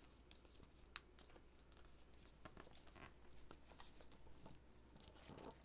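Faint rustling and light taps of a sheet of paper being folded and pressed flat by hand on a table, with one sharper click about a second in.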